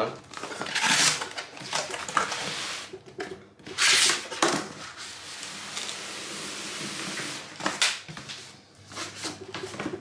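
Cardboard rustling and scraping as the flaps of an outer shipping carton are held open and the inner boxed product slides out against them. It comes in several short, noisy strokes, the loudest about four seconds in.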